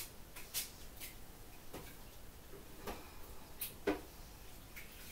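A few light, irregularly spaced clicks and knocks over a quiet kitchen background, the loudest near four seconds in: small handling noises as someone moves about the kitchen.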